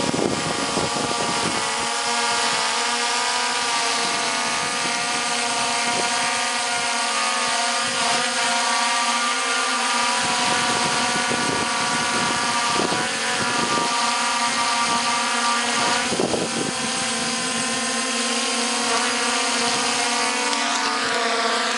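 DJI Phantom quadcopter with T-Motor MN2214 920KV brushless motors hovering close overhead, giving a steady propeller whine made of several held tones. Near the end the pitch shifts as the motor speeds change.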